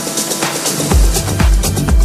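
Tech house music from a DJ set: hi-hats and percussion play with the bass end cut out, then about a second in the kick drum and bass come back in with a steady four-on-the-floor beat of about two kicks a second.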